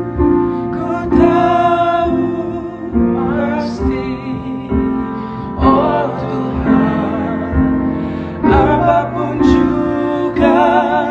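A male voice singing an Indonesian worship song in a duet, with held notes and vibrato over instrumental accompaniment.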